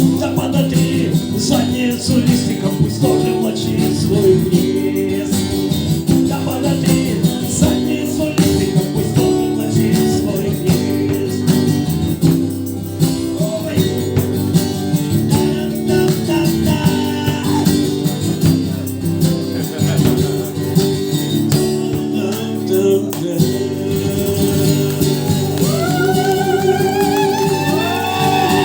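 Acoustic guitar strummed steadily through an instrumental passage of a live song. Near the end a voice comes in with sliding, wavering notes and no words.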